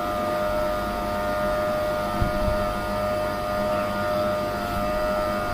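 Autool STD-206 smoke machine's air pump running with a steady hum and whine, pushing smoke into the evap system as pressure builds.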